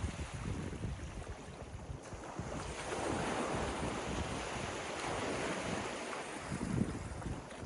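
Ocean waves washing up a beach, one wash swelling a few seconds in and easing off near the end, with wind gusting on the microphone.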